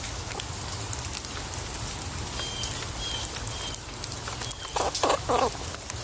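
An animal gives three short calls in quick succession about five seconds in, over a steady hiss, with a few faint high chirps a little earlier.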